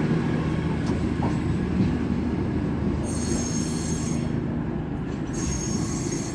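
Class 222 Meridian diesel multiple unit moving slowly over the platform approach, with a steady low rumble. A high wheel squeal comes in twice: about halfway through and again near the end.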